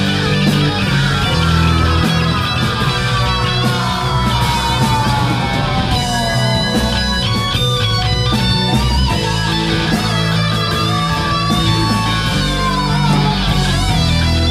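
Live rock band playing: distorted electric guitars, drums and keyboard over a steady bass line. A lead line, plausibly an amplified harmonica cupped to the vocal mic, bends slowly downward several times.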